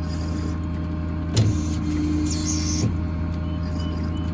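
Ford 6.7 Power Stroke diesel running steadily with the PTO engaged to drive the hydraulic crane, a steady drone, with two sharp clicks about a second and a half in and just before three seconds.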